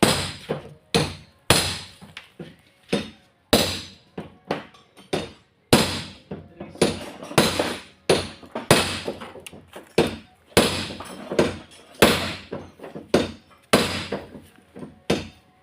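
Hammer blows on metal, repeated roughly one to two times a second, each with a short ring, as scrap truck parts are knocked apart.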